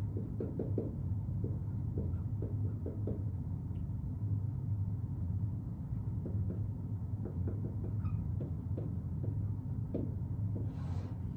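Marker scratching on a whiteboard in short faint strokes while writing a word, over a steady low room hum.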